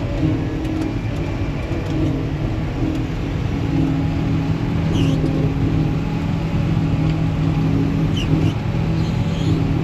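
Heavy farm machine's diesel engine running steadily at a constant speed.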